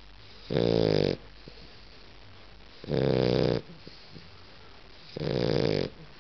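Shar-pei dog snoring in its sleep: three loud snores, each under a second long, a little over two seconds apart.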